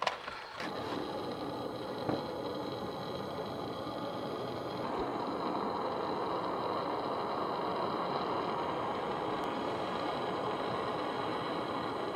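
Propane hand torch on a one-pound cylinder, its flame rushing steadily as it heats a brass lantern valve. There is a short click about two seconds in, and the flame grows a little louder about halfway through.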